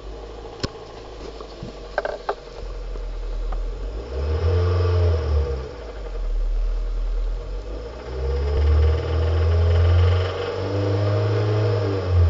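A few sharp clicks, then a 2005 Hyundai Sonata's 2.4-litre four-cylinder engine revved up and let fall back three times, with a knock that the owner traced to worn crankshaft bearings.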